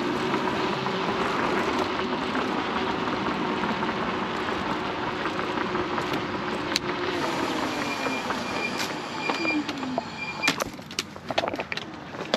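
Wind and road noise while riding an Inmotion RS electric scooter, with a steady hub-motor whine. Near the end the rush dies down as the motor whine falls in pitch, the scooter slowing, and a few sharp clicks follow.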